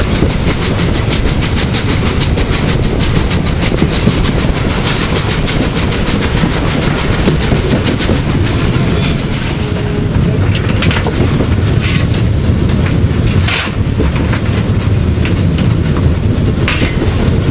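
PKP Ol49 steam locomotive running at speed, heard from its footplate: a loud, steady running din with a fast clatter of wheels over the rail joints.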